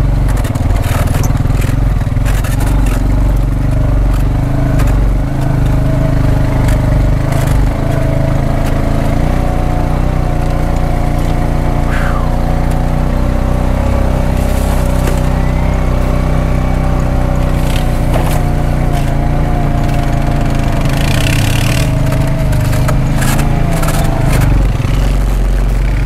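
A motor vehicle's engine running steadily at a constant pace, with scattered knocks and rattles over it.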